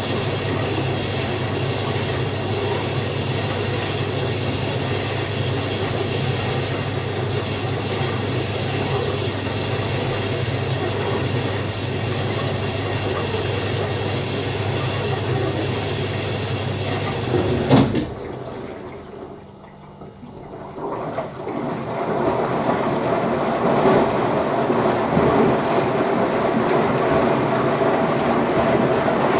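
Beko WDC7523002W washer/dryer in its final rinse: a steady hiss and low hum of water flowing into the drum cuts off with a click about two-thirds of the way in. After a short lull, the drum starts turning, with the wet laundry sloshing and tumbling in a steady rhythm.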